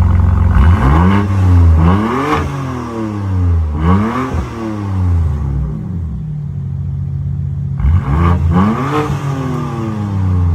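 BMW F80 M3's twin-turbo inline-six revved through an aftermarket stainless cat-back exhaust: four quick throttle blips, each rising and dropping back, with a steady idle between the third and fourth.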